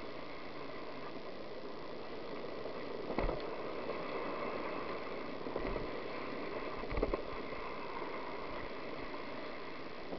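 Steady road noise of vehicles moving down an asphalt lane, with short knocks about three, five and a half and seven seconds in.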